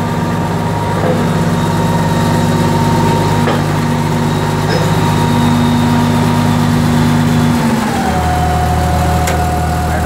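Komatsu D85EX-15 bulldozer's six-cylinder turbo diesel engine running steadily, heard from inside the cab. About eight seconds in, the engine speed drops and it settles at a lower, steady speed.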